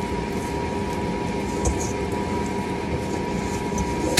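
Steady background hum and hiss with a constant pitched tone, over soft, sticky handling sounds of a hand turning olive-oil-coated bread dough in a metal mixing bowl, with a small bump about one and a half seconds in.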